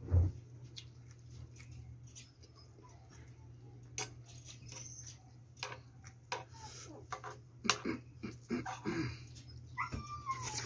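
Close-miked eating sounds: chewing and mouth smacks, with a metal spoon clicking and scraping on a glass plate as it scoops mashed potato, the clicks coming thicker in the second half.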